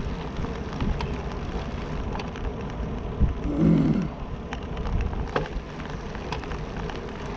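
Riding a road bicycle on a concrete path: steady wind noise on the microphone and tyre rumble, with a few light knocks. Just past halfway there is a brief falling hum.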